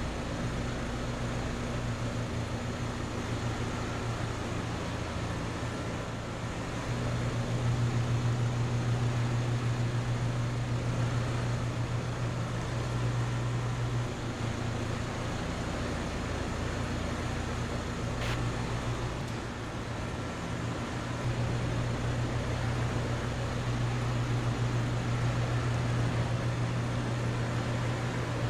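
Outdoor central air conditioner condensing units running: a steady compressor hum over the whoosh of the condenser fans. The hum swells and eases every few seconds.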